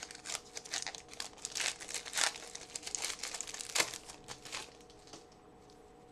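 A trading card pack's wrapper being torn open and crinkled by hand: a run of irregular crackling and rustling that dies down near the end.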